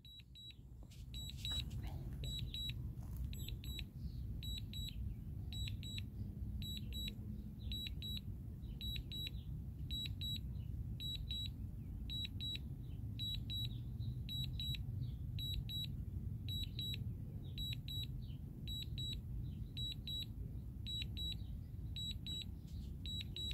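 A drone remote controller's return-to-home warning: short high beeps in pairs, repeating steadily as the critically low-battery DJI Air 2S flies itself home. A low rumble of wind and handling noise runs underneath.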